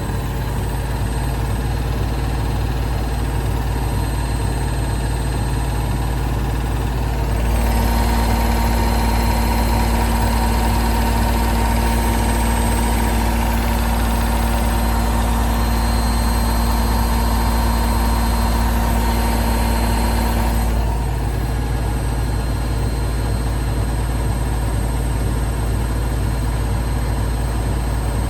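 Logik L712WM20 washing machine running through a wash programme with a steady low hum. From about seven seconds in it gets louder and picks up a steady whine, which falls away again about two-thirds of the way through.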